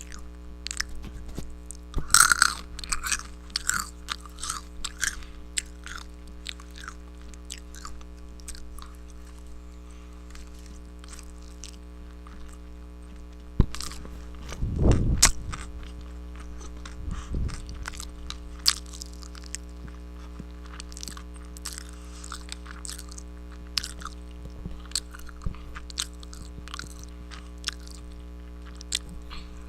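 Close-miked eating: crunchy bites and chewing. There is a dense run of sharp crunches about two seconds in, a louder bite around the middle, and then sparser chewing clicks, over a steady low hum.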